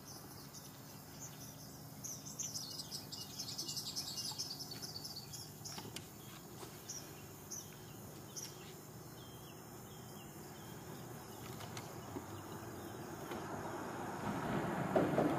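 Small birds chirping and twittering, with a quick burst of rapid chirps a few seconds in, over a low steady hum. A rushing noise swells near the end.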